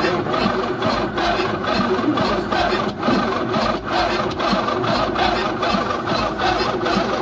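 Starter motor cranking the 6.2L Detroit diesel V8 of a Chevrolet squarebody truck in an even rhythm, without the engine catching.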